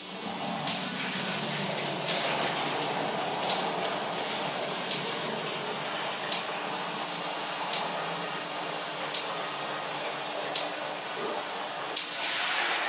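Mash of wet grain and wort poured from a stainless steel pot into a metal sieve over a bucket, the liquid splashing and draining through steadily as the first runnings are strained off, with a few short clicks along the way.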